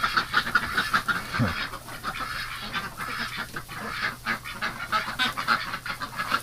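A flock of domestic ducks and geese calling, with many short quacks and honks overlapping in a steady chatter.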